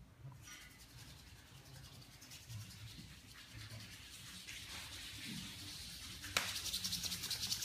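Brisk rubbing of hands, skin on skin, in fast even strokes: palms being rubbed to warm them for an eye massage. It is faint at first, then after a sharp click about six seconds in it turns much louder.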